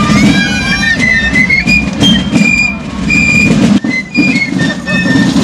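A small high-pitched flute plays a carnival street tune, a single line of short held notes stepping up and down, over a dense low din of street noise.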